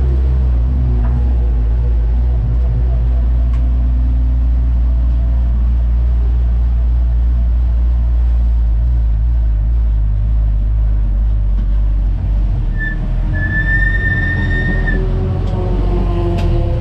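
Race car's engine droning steadily inside the stripped cabin, easing off about twelve seconds in. A high, steady whine sounds for about two seconds near the end.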